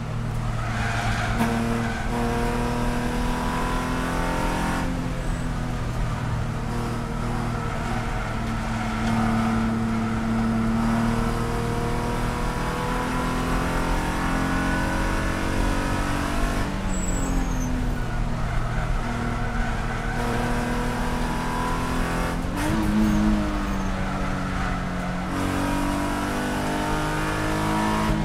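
Spec E46 BMW race car's straight-six engine heard from inside the cabin at racing speed, pulling hard at high revs. The pitch drops and climbs again twice in the second half.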